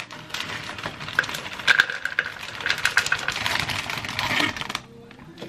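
Plastic food bags crinkling and rustling as they are handled and shaken, with pieces of fruit clattering into a plastic blender cup. The crackling stops suddenly near the end.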